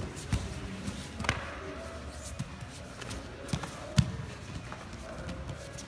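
Strikes thudding onto a training pad at an irregular pace, about half a dozen hits, the loudest about four seconds in.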